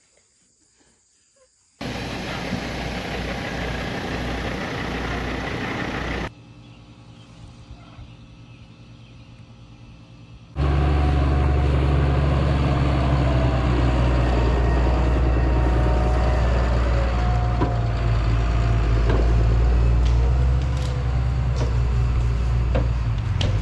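Large vehicle or heavy-equipment engine running, heard in separate clips cut together: a short near-silent start, a few seconds of loud machine noise, a quieter stretch, then a long loud stretch of steady engine.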